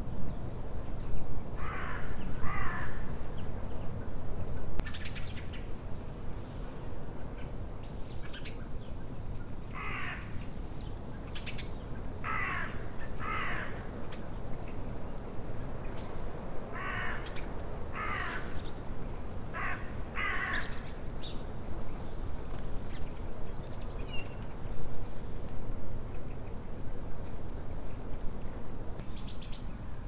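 A crow cawing, harsh calls mostly in pairs that come several times, over scattered high, thin chirps of small songbirds and a steady low rumble.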